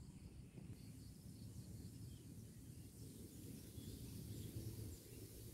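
Faint outdoor ambience: a low, uneven wind rumble on the microphone under a faint steady high hiss.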